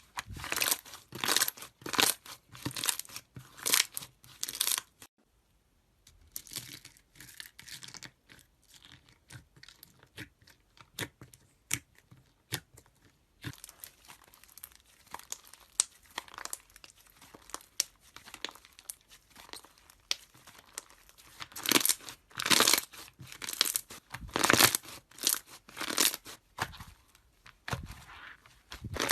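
Slime being squeezed and stretched by hand, making dense runs of sharp crackles and pops. The crackling breaks off briefly about five seconds in, goes quieter for a while, then grows loud again in the last third.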